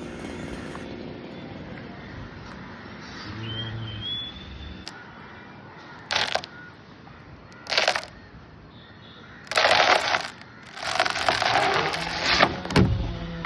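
Cut leafy tree branches rustling and crackling in four loud bursts, the last two longer.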